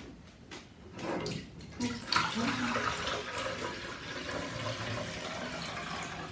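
Water poured from a glass jug into an espresso machine's removable plastic water tank: a steady splashing pour that starts about two seconds in, after a few light knocks as the jug is handled.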